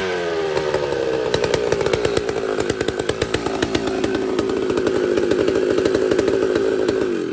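McCulloch 125 two-stroke chainsaw running just after firing up for the first time in 15 years. The revs fall over the first second, then it runs steady, and it slows and cuts out right at the end.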